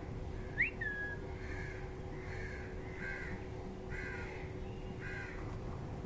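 Birds calling: a sharp upward whistle running into a short level note about half a second in, the loudest sound, then five harsh calls spaced about a second apart.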